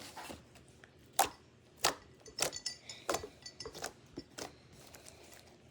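Light clicks and taps from small craft materials being handled, spaced irregularly, with faint rustling between them.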